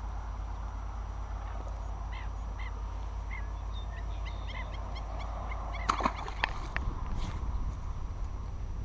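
Birds calling in a series of short, repeated honking notes, with a few sharp clicks and knocks about six seconds in as the fishing rod and reel are handled. A steady low rumble runs underneath.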